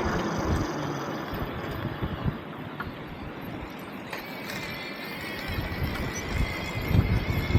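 Wind buffeting the microphone as a low, gusty rumble that eases off midway and picks up again near the end. A faint, steady high tone comes in about halfway through.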